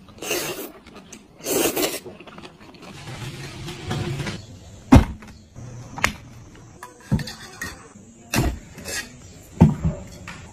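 Two loud slurps as scallop meat is sucked from its shell, then a series of about six sharp clacks of dishes being set down on a table.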